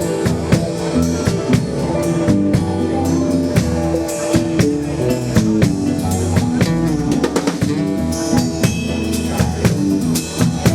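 Rock band playing an instrumental passage: drum kit keeping a steady beat under guitar.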